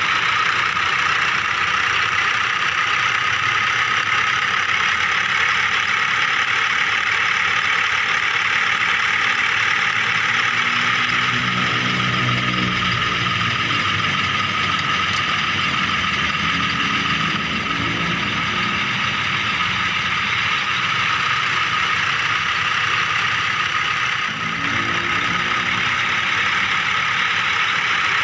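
Small electric motors and gearboxes of remote-control toy vehicles whirring steadily at a high pitch. A lower, engine-like hum rises and falls three times: about 11 seconds in, around 17 seconds, and near 25 seconds.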